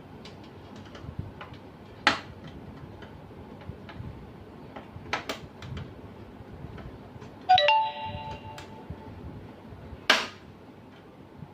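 Handling clicks and taps from the casing and parts of a Canon LBP6000 laser printer being taken apart, with three sharp knocks. About seven and a half seconds in, a loud clink of metal rings for about a second.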